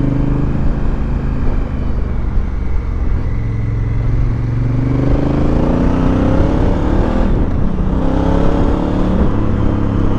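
Honda Africa Twin Adventure's parallel-twin engine under way, heard from the rider's seat with wind rush. It runs steadily at first, then climbs in pitch as it accelerates from about halfway through, dips briefly and climbs again near the end.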